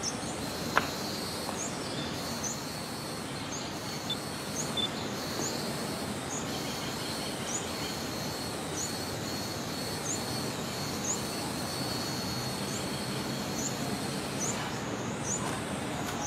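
Outdoor ambience: a steady background hiss with a short, high, rising chirp repeating about every two-thirds of a second and a faint steady high whine beneath it. One sharp click about a second in.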